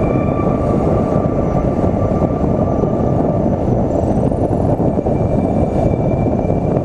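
Steady wind and road rumble from a car driving at speed, buffeting a camera microphone mounted outside the car.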